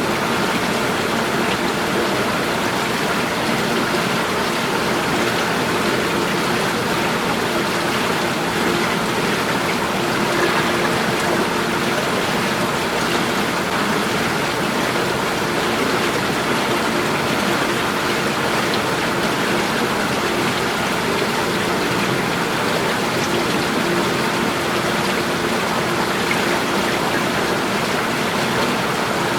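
Running water rushing steadily and evenly, a continuous loud splashing flow with no breaks.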